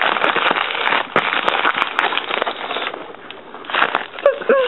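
Plastic bubble wrap crinkling and crackling as fingers squeeze and rub it, the bubbles not popping. A dense crackle that eases off for a moment about three seconds in, then returns.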